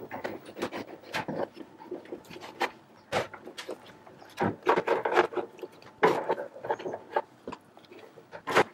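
Plastic UPS case being handled and its screws driven in with a hand screwdriver: irregular clicks, knocks and scrapes of the screwdriver and the case bumping on the desk.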